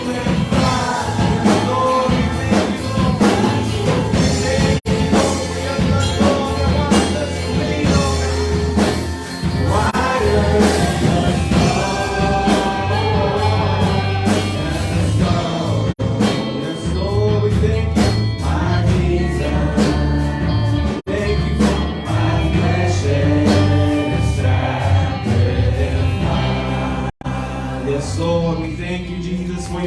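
Worship band and singers performing a Christian worship song, with a steady bass line under the voices.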